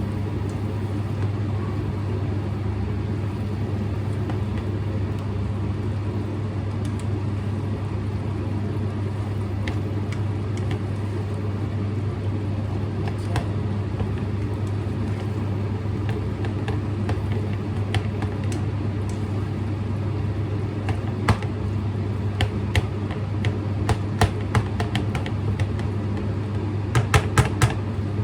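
A steady low mechanical hum, with scattered light clicks and a quick run of sharper clicks or knocks near the end.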